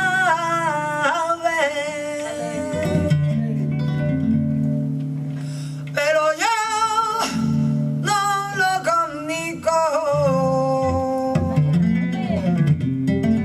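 Flamenco soleá: a cantaor singing long, bending phrases over flamenco guitar, the voice dropping out between phrases while the guitar plays on.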